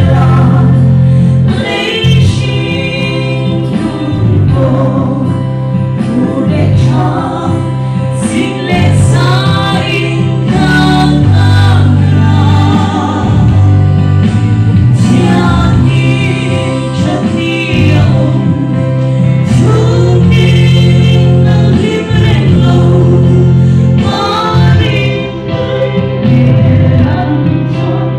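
A female vocal trio singing a Mizo gospel song in harmony into microphones, over a steady instrumental accompaniment.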